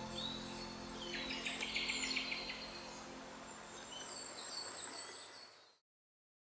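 Small birds chirping and calling over a faint steady hiss, with the tail of background music fading out in the first second or so. The sound cuts off abruptly near the end.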